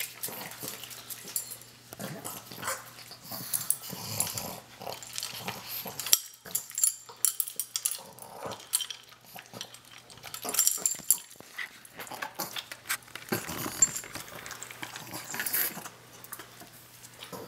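Pug eating dry kibble from a bowl: irregular crunching, kibble clattering against the bowl, and snuffling noises that sound like a pig.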